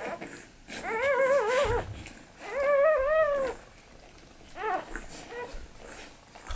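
Newborn Australian Shepherd puppy crying: two wavering, fairly high cries of about a second each, then a short third cry about four and a half seconds in.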